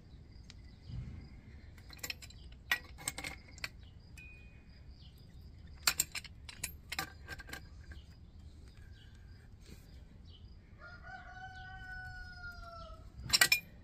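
Metal clinks and knocks of a pipe wrench working on the threaded brass and steel fittings at the end of a gas line, while a pressure-test gauge is being fitted. A single long, slightly arching animal call lasts about two seconds near the end.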